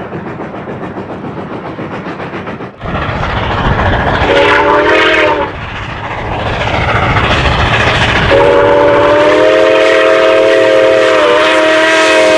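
Train wheels clattering over rail joints in a steady rhythm, then a louder locomotive rumble. A multi-note train air horn sounds one short blast about four seconds in, then a long blast from about eight seconds on.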